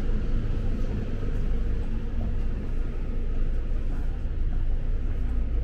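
City street noise: a steady low rumble of road traffic, with no distinct single event.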